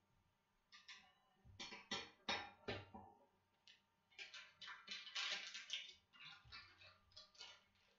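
Plastic instant-ramen packet crinkling and rustling as it is handled, a run of irregular crackles. A few heavier knocks come about two seconds in.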